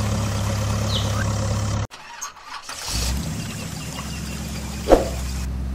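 A vehicle engine idling, cut off abruptly about two seconds in. About a second later a deeper engine starts up and idles steadily, with one short sharp knock near the end.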